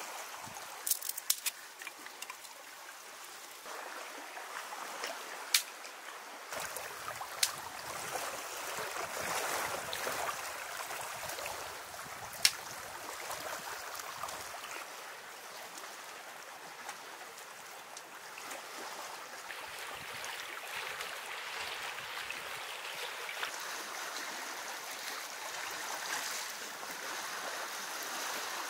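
Steady sound of moving water, with a few sharp clicks or snaps: several about a second in, then single ones near six, seven and twelve seconds.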